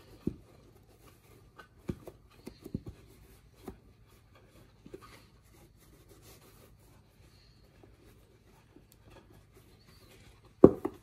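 Hands rubbing and pulling grey upholstery cover material over a padded panel, with a few light knocks early on and one louder thump near the end.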